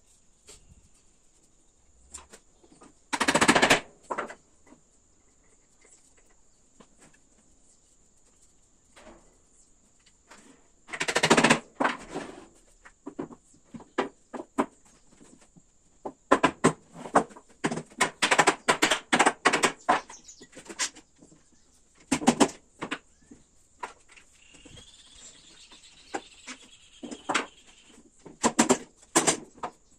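Rubber mallet knocking the glued joints of a wooden stool frame together: clusters of sharp blows, with a long run of rapid knocks in the middle and a few more near the end, between quiet pauses.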